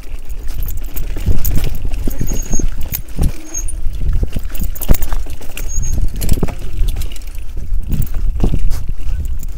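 A bicycle rattling and knocking over rough ground, with many irregular sharp clicks over a constant low rumble.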